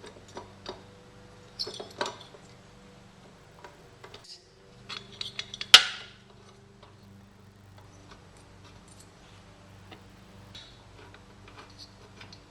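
Scattered metallic clinks and taps of head bolts and the cylinder head being handled and set onto a small engine's block, with one sharp clack about six seconds in. A faint steady hum runs underneath.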